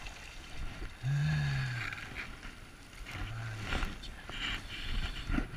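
A man's wordless murmurs: a drawn-out 'hmm' about a second in and a shorter one past three seconds, over the steady rush of a small stream. Toward the end come a few sharp clicks and rustles of handling in the grass.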